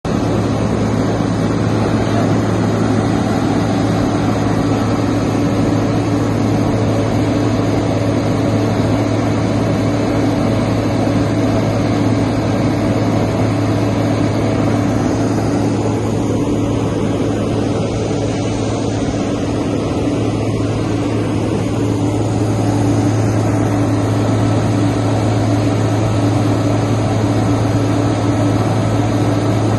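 A large engine running steadily: a constant low drone with a steady hum that holds at one pitch throughout.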